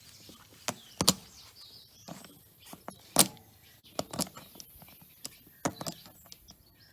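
Sharp, irregular clicks and knocks of a hand tool gripping and working the puncturing object out of a tubeless motorcycle tyre, about a dozen of them, the loudest about a second in and near the middle.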